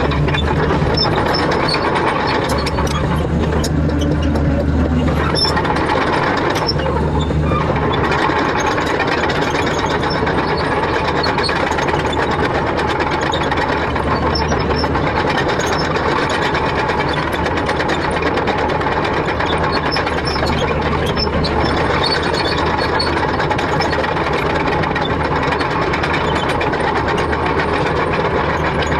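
Excavator's diesel engine running steadily, its low hum swelling and easing every few seconds as the machine works, with scattered light clicks.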